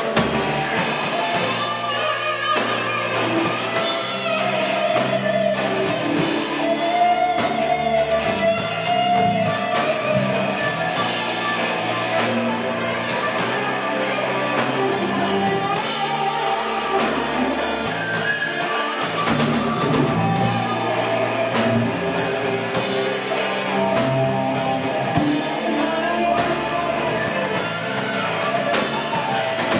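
Live rock band playing through amplifiers: electric guitars, bass guitar and drum kit, steady and loud.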